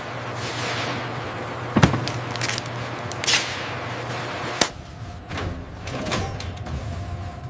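Two sharp knocks, the first just under two seconds in and the louder, with a short hiss between them, over a steady low hum that fades after the second knock.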